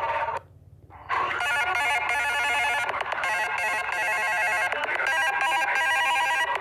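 Samsung Galaxy J2 Prime ringtones playing. One tone cuts off about half a second in, and after a brief gap another starts: a busy electronic melody of quick, rapidly repeating notes.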